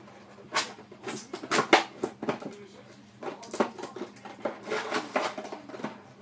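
Plastic milk bottle crackling and crunching as a small dog bites it and pushes it about with its mouth, in a run of irregular sharp crackles.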